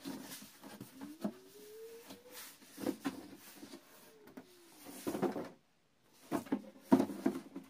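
Black IKEA TJENA cardboard box being handled and turned over: rubbing and scraping of stiff cardboard with light knocks, and a cluster of louder knocks about two-thirds of the way through.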